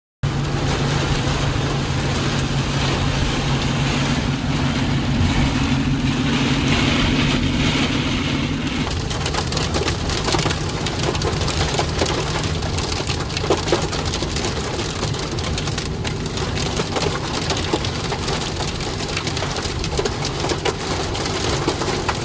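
Heavy rain pounding on a vehicle's roof and windshield, a dense steady drumming of drops with a low vehicle hum underneath.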